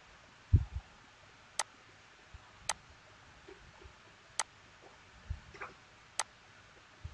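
Computer mouse clicking: four sharp single clicks spaced one to two seconds apart. There is a louder low thump about half a second in and a couple of softer low bumps later, over faint hiss.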